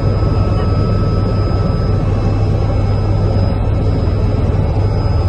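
Helicopter engine and rotor running steadily, heard from inside the cabin: a loud, deep drone with a steady high whine over it.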